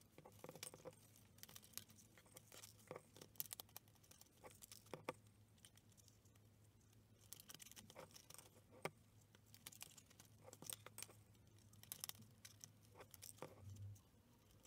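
Faint, scattered clicks and taps of cardboard advent calendar doors being pried open with a metal tool, and chocolate balls being dropped into a glass bowl.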